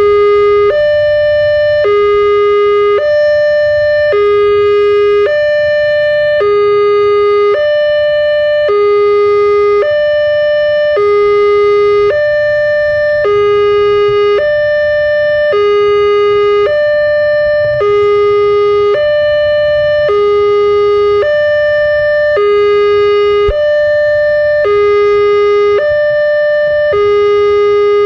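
Railway level-crossing warning alarm sounding its repeating electronic two-tone signal, a higher and a lower note alternating about every three-quarters of a second. It signals that a train is approaching and the crossing barrier is down.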